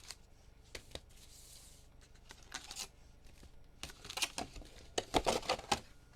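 Hobby box of trading cards being opened and handled. There are scattered taps and clicks, a brief tearing hiss about a second in, and a cluster of rustling and tapping near the end.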